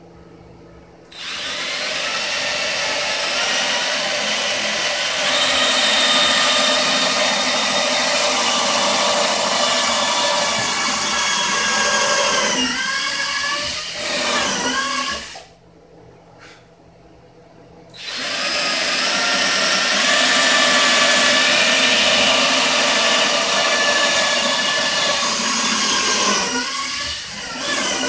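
Cordless drill running in two long spells as it bores into a wooden panel, a steady whine whose pitch sags near the end of each spell, with a short pause between them.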